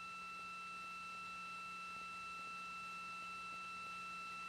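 Faint, steady electronic tone: two high pitches held together without change, over a low hum.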